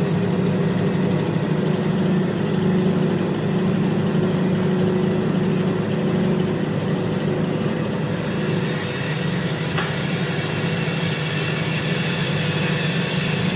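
Woodworking machinery running with a steady low hum. A higher hissing noise joins about eight seconds in, with a single click near ten seconds, as if the machine has started cutting wood.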